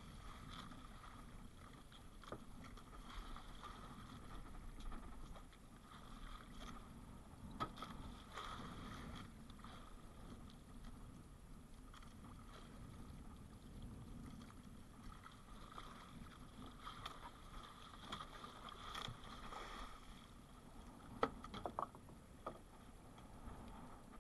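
Faint water lapping and washing against a small outrigger boat's hull, with a few light knocks of line and gear against the boat, most clearly near the end.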